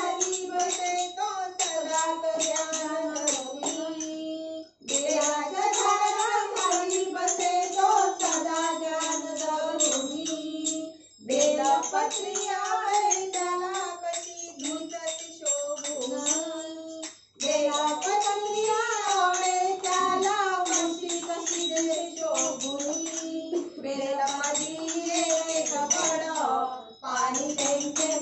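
A group of women singing a Marathi devotional bhajan to Shiva together, in phrases of about six seconds with short breaks between them, over a steady beat of hand claps.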